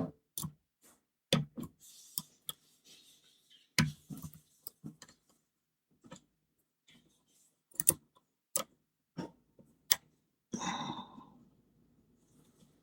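Lock pick and tension tool clicking irregularly against the pins of a Belfry padlock as it is being picked, a dozen or so sharp ticks at uneven spacing, with a short scuffing noise near the end.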